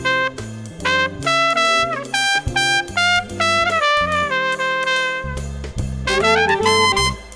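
Big band jazz playing, led by a bright trumpet line of separate notes with a few slides up and down, over bass notes.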